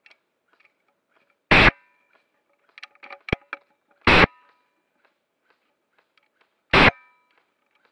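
Airsoft electric gun (AEG) cycling in four short bursts, about a third of a second each and evenly spaced, each with a brief metallic ring after it, as the trigger is pulled on a gun that is failing. A few faint clicks in between.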